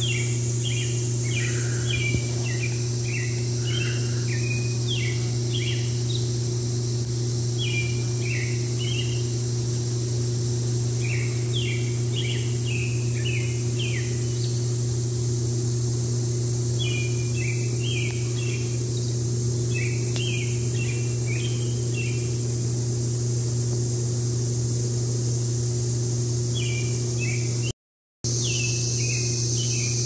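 Woodland insects droning steadily, with groups of short bird chirps coming in bursts, over a steady low hum that is the loudest thing in the mix. The sound cuts out for a moment near the end.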